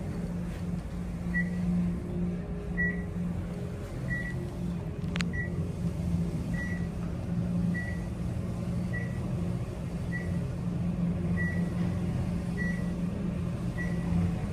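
Passenger elevator car travelling upward: a steady low hum from the moving car, with a short high beep about every 1.2 seconds, the floor-passing signal sounding as each floor goes by. A single sharp click about five seconds in.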